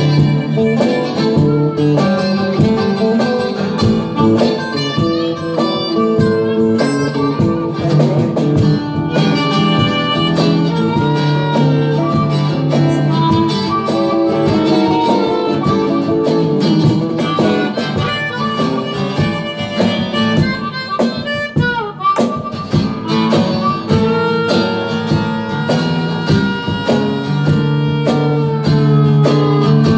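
Live blues band playing, with a harmonica solo over guitar accompaniment; the harmonica bends a note sharply about two-thirds of the way through, then holds a long high note to the end.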